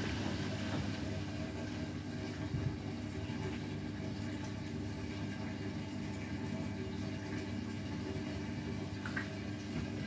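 Beko WTK104121W front-loading washing machine on a quick rinse: a steady motor hum as the drum turns the laundry, with water sloshing through the suds and a brief knock about two and a half seconds in.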